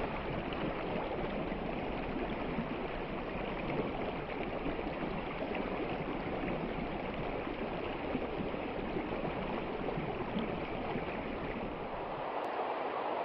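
River water rushing and flowing steadily. Near the end the low rumble drops away.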